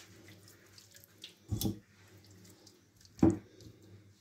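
A hand squelching through a wet oil-and-spice marinade in a glass bowl and rubbing it onto raw lamb pieces, with two louder wet squelches, about a second and a half in and again just past three seconds.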